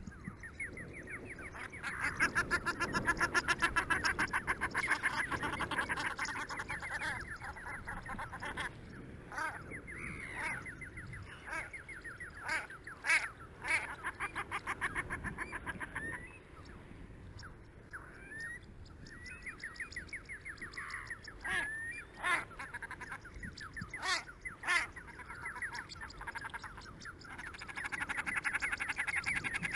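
Ducks and other wetland animals calling. A dense stretch of rapid pulsed calls comes a couple of seconds in, then scattered short sharp calls, and the rapid pulsing returns near the end.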